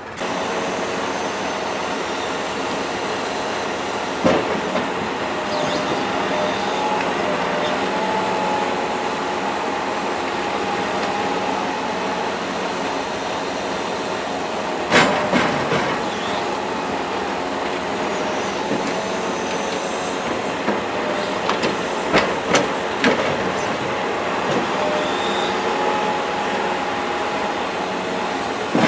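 Timber truck's loader crane at work: the engine driving the crane's hydraulics gives a steady whining drone whose pitch drifts a little as the crane moves. Now and then there is a sharp knock of logs striking the trailer's bunks and stakes, the loudest about halfway through.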